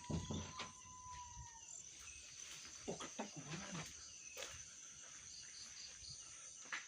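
Outdoor insect chorus, a steady high-pitched buzz, with a thin whining call that falls slightly during the first second and a half and a few faint clicks.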